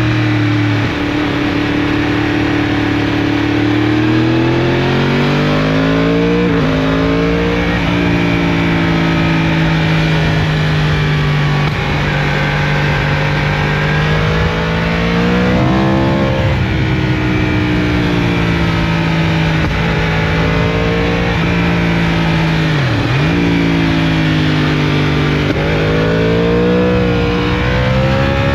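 Yamaha R1 crossplane inline-four through an Akrapovič full exhaust system, heard onboard while riding. The engine note holds fairly steady, rises several times with the throttle, and dips sharply once about two-thirds through.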